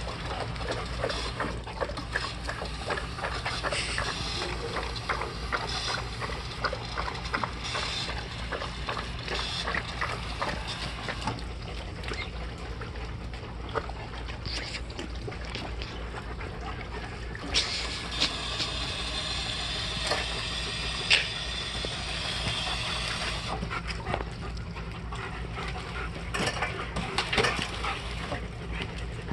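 German shepherd puppies lapping water from a metal bowl: a quick, irregular run of wet clicks. For several seconds past the middle, a steady hiss joins in.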